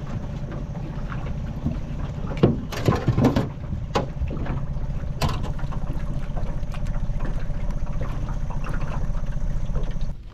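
Crab pot hauled up out of the water by its rope beside an aluminium boat: loud splashing as it breaks the surface about two and a half to three and a half seconds in, then dripping and a few sharp knocks of the pot against the hull. A steady low rumble runs underneath.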